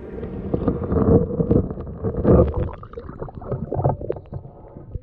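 Shallow water sloshing and gurgling in irregular splashes as a flounder, speared on a gig, is worked and lifted out of the water.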